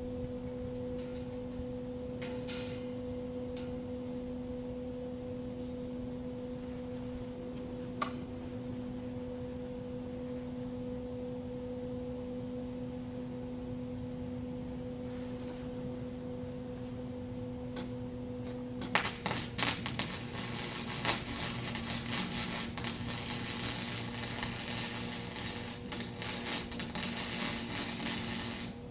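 Electric welder humming steadily, then an arc struck about two-thirds of the way through, crackling and sputtering unevenly for about ten seconds before it stops, as a cattle-panel joint is welded. The arc is running with enough voltage and gives a much better weld.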